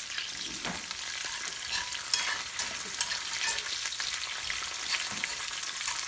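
Coconut oil sizzling in a small cast iron pan with scattered sharp crackles, as mustard seeds, coconut slivers, curry leaves and dried red chillies fry for a Kerala-style tempering.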